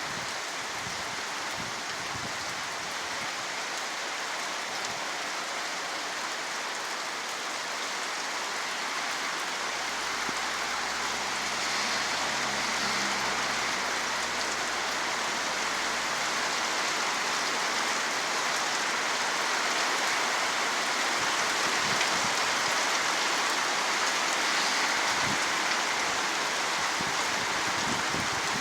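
Steady rain falling, a dense even hiss that grows slightly louder about a third of the way through. A low droning hum joins it from about ten to seventeen seconds in.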